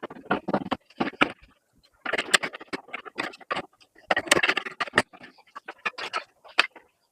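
Irregular clicks, knocks and scrapes of hands and tools handling the TV's parts, in short clusters with brief silent gaps between them.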